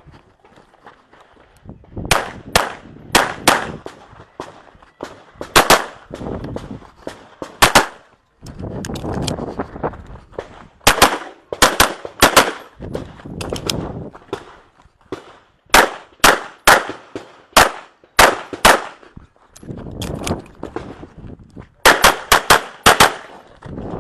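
Handgun shots fired in quick pairs and rapid strings, with short pauses between groups, as a competitor shoots a timed practical-shooting stage. Each shot is sharp and rings out briefly.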